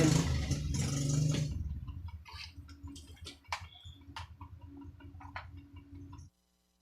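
Conzert amplifier's speaker hissing loudly for about a second and a half, the hiss that is the fault being traced. It then drops away to a faint hum with scattered clicks and crackles while the circuit board is poked in a finger check, and the sound cuts off about six seconds in.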